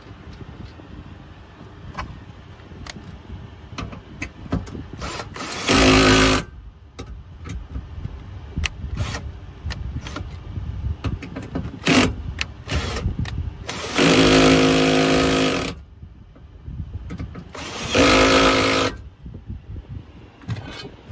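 Cordless drill-driver driving in the bracket's fixing screws: four short runs of the motor whine, the longest about two seconds, with small clicks and handling knocks between the runs.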